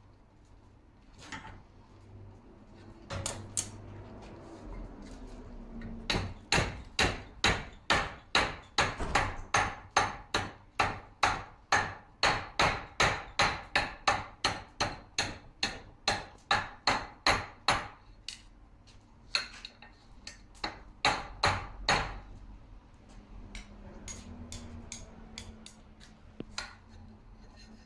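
Blacksmith's hand hammer striking metal on an anvil: a few single blows, then a steady run of about two ringing blows a second for some twelve seconds, a few more heavy blows, and lighter taps near the end.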